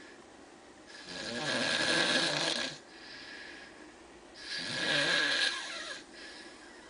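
A sleeping man snoring: two long snoring breaths, starting about a second in and again about four and a half seconds in, each nearly two seconds long, with quieter breathing between them.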